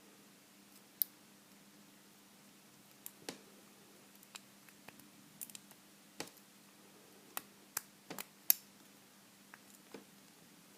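Irregular small metallic clicks and ticks of a pick and tension wrench working inside a vintage Corbin pin tumbler padlock, about a dozen of them, the sharpest about eight and a half seconds in; the pins keep dropping rather than setting. A faint steady hum runs underneath.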